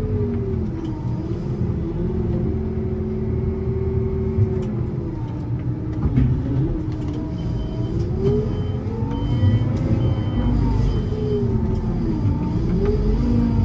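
Farm loader's diesel engine working under load, its revs dropping and rising several times as the machine pushes and manoeuvres. A repeated high beep sounds for a few seconds in the middle.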